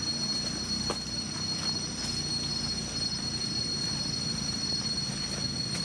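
Rainforest insect chorus: a steady, high-pitched drone of several held tones, with no break.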